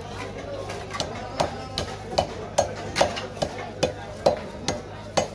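Sharp clicks and cracks, about two a second, as chunks of a large catla carp are pushed and drawn against the fixed curved blade of a boti, the blade cutting through scales, skin and bone.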